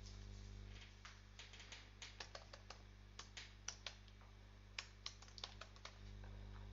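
Faint typing on a computer keyboard: a run of irregular key clicks, starting about a second in and stopping shortly before the end.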